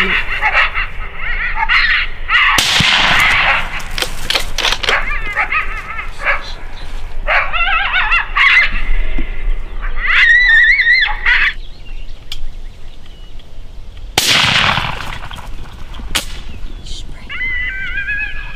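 Coyotes yipping and howling in wavering high calls, broken by two loud gunshots about two and a half seconds and fourteen seconds in.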